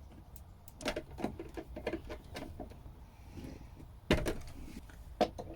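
A run of small clicks and knocks from handling wiring and connectors by hand, with a sharper knock about four seconds in.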